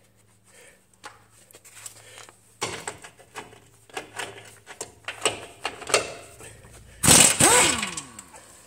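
Hand tools working on metal at the engine mount's 17 mm fasteners: irregular clicks and knocks, then a loud scrape with a falling squeal about seven seconds in, over a steady low hum.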